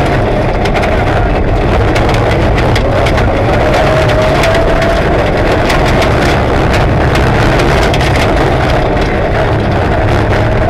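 Rally car engine running hard under load, heard from inside the cabin, with a whine that rises and falls gently. Loose gravel rattles and ticks against the car's underbody throughout.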